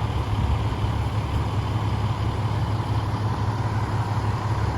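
Truck running down the road: a steady low engine and road rumble with an even hiss of road noise above it.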